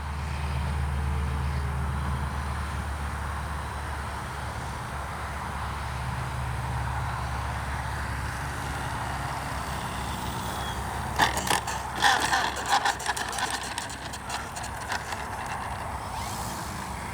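Steady low wind rumble on the microphone, with the faint hum of a distant electric RC plane's motor and propeller drifting in pitch. A cluster of sharp crackles and knocks comes about eleven to fifteen seconds in.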